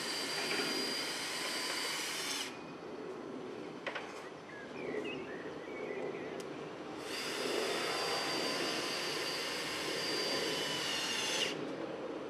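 Cordless drill driving screws into wooden shingle panels: the motor runs steadily with a high whine, stops after about two and a half seconds, then runs again for about four and a half seconds.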